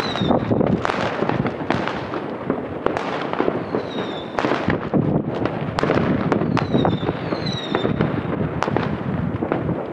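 Many fireworks going off at once: a dense, continuous barrage of bangs and crackling. Over it, high whistles fall in pitch a few times, near the start, about four seconds in and again around seven seconds in.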